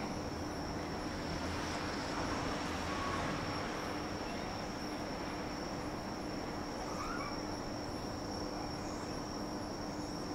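Evening outdoor ambience: a steady, high-pitched insect chirr over a steady low hum and a faint wash of distant town noise.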